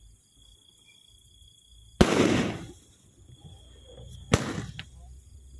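Eight-shot aerial firework going off: two sharp bangs, the first about two seconds in and the second a little over two seconds later, each dying away over about half a second.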